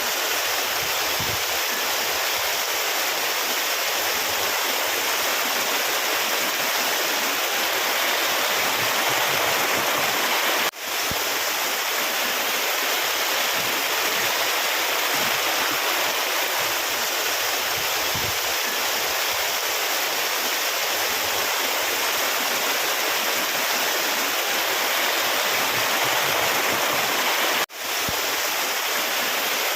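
Steady rushing of flowing water, like a stream over rocks, an even hiss with little low rumble. It drops out very briefly twice, near eleven seconds and near the end, and comes straight back.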